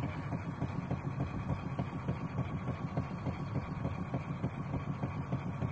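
Model vertical single-cylinder steam engine running steadily under steam, a fast, even beat of short strokes.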